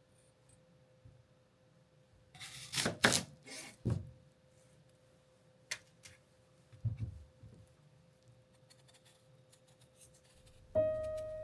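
Quiet handling of objects: a short burst of rustling and clicks, a single click, then a soft knock, over a faint steady hum. Piano music comes in near the end.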